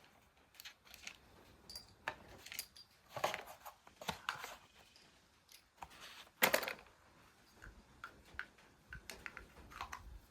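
Scattered small clicks, rattles and rustles of handling a cardboard box of rifle cartridges, with metal cartridges clinking now and then. The sharpest click comes about six and a half seconds in.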